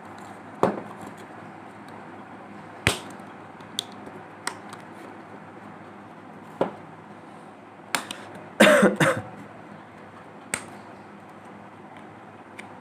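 Sharp plastic clicks and snaps from a tightly fitted smartphone housing being pried open with a tool. They come one at a time every second or two, with a quick run of several louder snaps about nine seconds in, over a steady low hiss.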